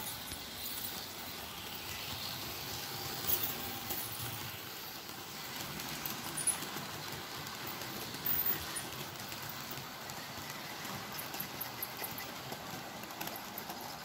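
Model freight train rolling along the layout's track: a steady rolling rattle of small wheels on rail, with light rapid clicking over the rail joints.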